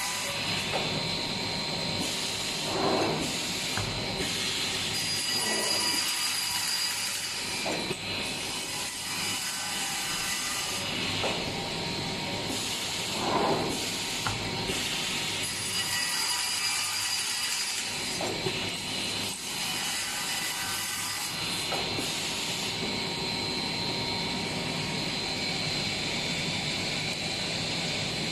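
TS-J39 automatic frame cutting machine running steadily, its saw cutting polystyrene frame moulding, with louder cuts about three seconds in and again about thirteen seconds in.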